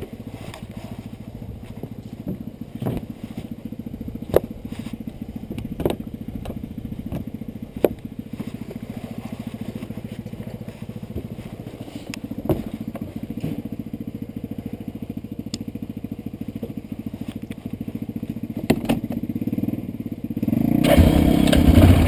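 Yamaha Rhino side-by-side's engine running at low speed, a steady low hum with a fast even pulse, while it crawls through mud; several sharp knocks and clunks come now and then. Near the end the engine revs up and gets much louder.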